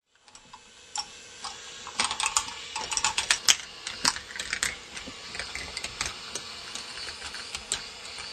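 Plastic balls clattering along the tracks of a K'nex ball machine: an irregular run of sharp plastic clicks and knocks, starting about a second in and busiest a couple of seconds later, over a faint steady hum.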